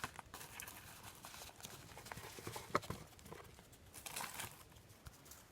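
2002 Fleer Tradition basketball trading cards being flipped through by hand: soft irregular clicks and short rustles of card stock sliding over card, with a slightly longer rustle about four seconds in.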